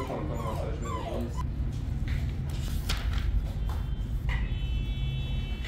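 A puppy whimpering in high, wavering whines through the first second or so while a vet handles it, over a steady low hum. A sharp click about three seconds in.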